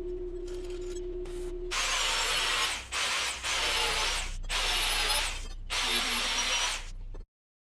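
A power tool working in four bursts of about a second each, with short pauses between, before the sound cuts off abruptly near the end.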